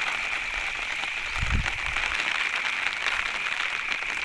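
Light rain pattering steadily, with a brief low rumble about one and a half seconds in.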